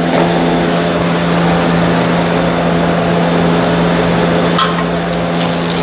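A steady mechanical hum from a running machine, a constant low drone with a hiss over it. There is one brief click about four and a half seconds in.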